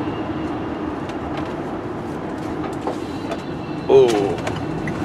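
Steady road and engine noise inside a moving vehicle's cab, with scattered light clicks and rattles. A brief voice cuts in about four seconds in.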